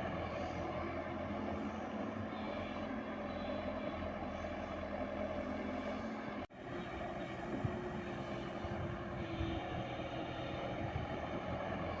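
JCB 120 excavator's diesel engine running steadily. The sound cuts out for an instant about six and a half seconds in, then carries on as before.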